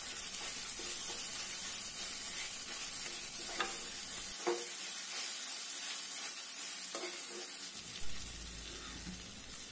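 Tomato-onion masala sizzling in a metal kadhai as a steel spatula stirs and mashes the softened tomatoes, with a few sharp knocks of the spatula against the pan.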